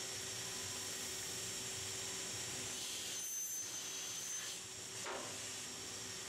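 PMI-455 A-Type automatic precision extrusion saw running with a steady machine hiss and hum. The sound changes about three seconds in, with a high tone for a second or so, and a short burst of noise comes about five seconds in.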